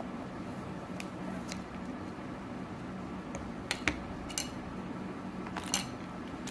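Slime packaging being handled by hand: a few scattered sharp clicks and crackles, the loudest about four seconds in and again near the end, over a steady low hum.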